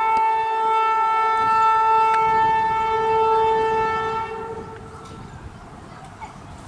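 Horn of an approaching WAP-7 electric locomotive, one steady blast of about four and a half seconds that then stops, leaving the low rumble of the train drawing closer.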